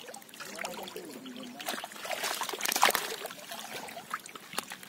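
Pond water splashing and trickling around live fish in a seine net and a shallow plastic basin, with many small irregular splashes that grow busier about two seconds in.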